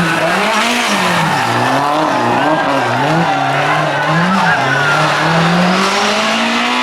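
BMW M3 E30 rally car's S14 four-cylinder engine at full attack, its pitch rising and falling repeatedly as it revs and shifts gears through a series of bends. Near the end it pulls steadily higher on a longer run.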